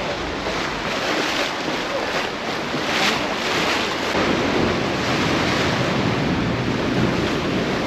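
Rushing water and wind as a small boat moves over choppy sea, with wind buffeting the microphone. There is a brief louder rush about three seconds in.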